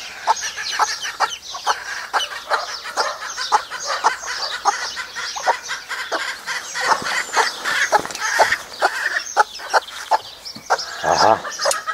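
Bantam chicks peeping rapidly and without a break, several calls a second, with a broody hen's lower clucks mixed in.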